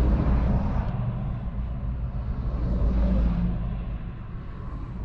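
Several heavy trucks passing close by on a highway, heard from inside a parked car: a low rumble of engines, tyres and wind that swells over the first three seconds and then fades away.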